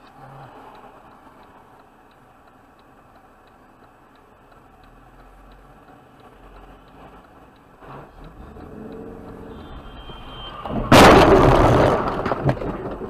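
Car crash heard from inside a car through a dash camera: faint road noise with a steady light ticking, a brief high squeal, then about 11 s in a loud sudden impact that crunches and dies away over a second or two.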